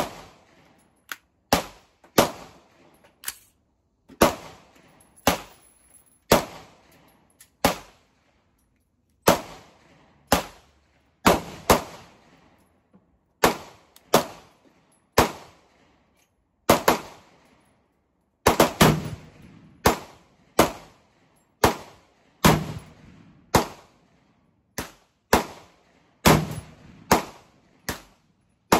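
AR-15 pistol fired semi-automatically in a long string of roughly thirty shots at an uneven pace of one to two a second, with a quick cluster of shots a little past the middle.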